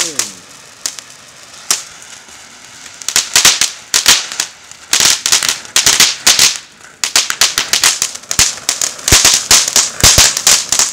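Ground fountain firework spraying sparks with rapid crackling. The crackling is sparse at first, then dense and nearly continuous from about three seconds in, with a few louder pops near the end.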